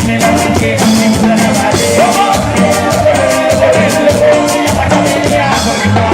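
Live band music with a quick, steady beat over a bass line and a melody.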